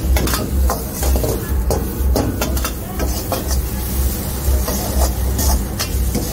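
Steel ladle scraping and clanking against a wok as chopped vegetables are stir-fried, with a frying sizzle. Under it runs a low rumble that swells and fades about twice a second.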